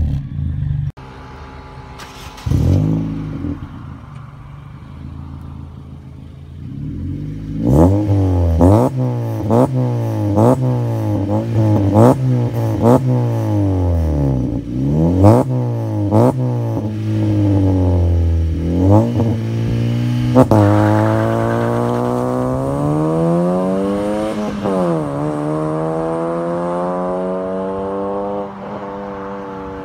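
Honda Civic FB's four-cylinder engine through an aftermarket Alpino F03 muffler and Alpino downpipe with the stock resonator: a series of quick throttle blips, about one a second, each pitch rising and dropping sharply. Then a long acceleration away, the pitch climbing, dipping once at an upshift and climbing again, fading with distance near the end.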